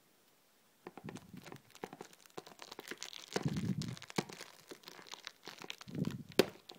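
Cellophane shrink-wrap on a perfume box crinkling and tearing as it is pulled off by hand: irregular crackles starting about a second in, with denser bursts around the middle and again near the end.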